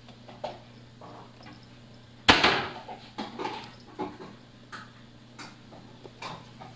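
A kitten pawing at horizontal window blinds, the slats clattering: one sharp, loud rattle a couple of seconds in, then a run of lighter clicks and taps.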